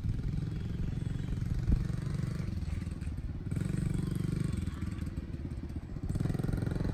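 Small dirt bike engine running as the bike is ridden along a street, its firing pulses steady, the note easing off and picking up again twice with the throttle. A single sharp knock a little under two seconds in.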